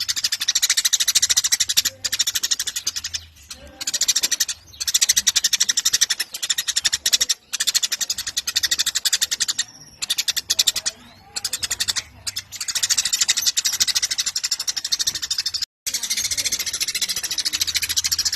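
Eurasian tree sparrows chattering: fast, dense runs of high chirps lasting a few seconds each, broken by short pauses.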